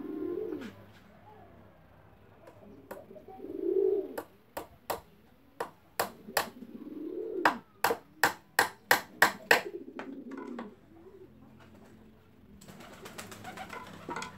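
A hammer tapping small nails into a wooden speaker-box panel: about twenty sharp taps, quickening to about four a second in the middle. Low cooing calls sound between the first strokes. The board is handled with a soft scraping rustle near the end.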